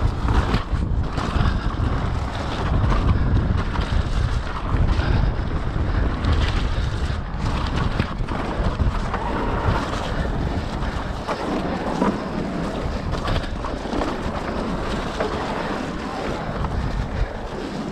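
Wind buffeting the microphone of a camera on a mountain biker descending a trail, over a heavy rumble with constant rattling and clattering from the bike and tyres on the rough surface.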